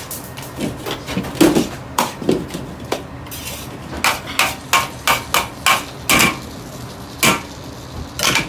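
Metal ladle scraping and clanking against a 50 cm wok while stir-frying pork and greens, with a quick run of ringing clanks about four to six seconds in and two more single clanks near the end.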